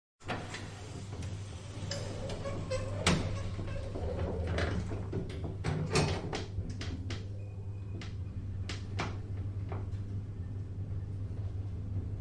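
Elevator running: a steady low hum of the drive with scattered mechanical clicks and clunks from the car and its doors.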